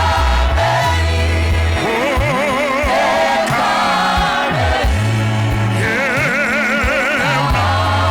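Gospel music: sung voices with a wide vibrato over a moving bass line.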